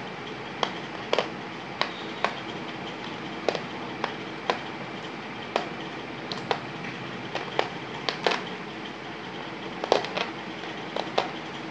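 Marbles clicking against a plastic marble-solitaire board as they are jumped, lifted out and set down in the rim groove: irregular sharp clicks, one or two a second, over a steady hiss.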